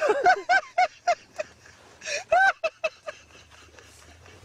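A man laughing hard in a quick run of loud ha-ha bursts, with a longer, higher burst about two seconds in, then trailing off about three seconds in.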